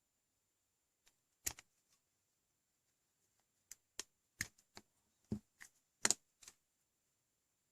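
A string of short, sharp clicks and light knocks, about a dozen in five seconds, the loudest near the start and near the end: USB-C cable plugs being pulled from a small cable tester board and the cable handled.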